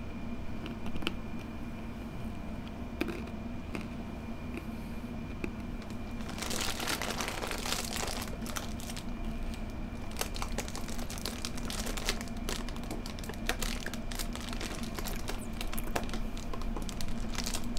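Close-miked eating noises: crinkling and crunching, a dense run of crackles that picks up and gets much busier about six seconds in, caught by a sensitive studio microphone, over a faint steady hum.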